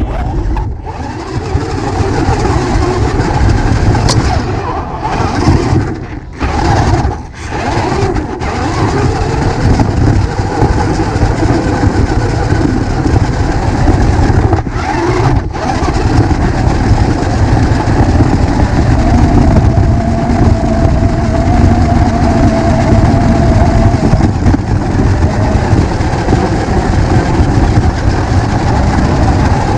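Loud, steady vehicle-like running noise, dipping briefly a few times around six to eight seconds in and again at about fifteen seconds.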